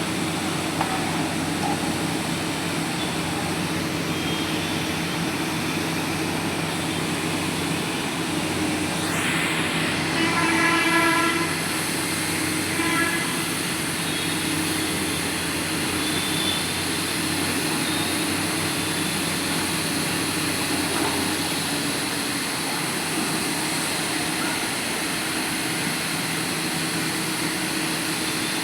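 Heavy diesel engine of a Sany drilling rig running steadily under load. A short pitched horn-like tone sounds about ten seconds in, and briefly again about three seconds later.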